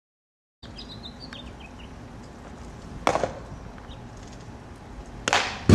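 A baseball smacking into a leather glove twice during a pitching bullpen session: a sharp pop about three seconds in, and a louder one near the end.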